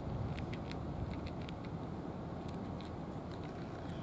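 A cat crunching dry kibble, with quick irregular crisp crunches, over a steady low background rumble.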